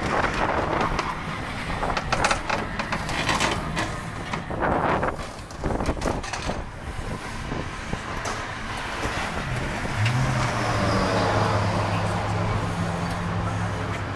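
GT3 race car engine noise with a run of short sharp clattering sounds in the first half; from about ten seconds in a steady low engine note holds.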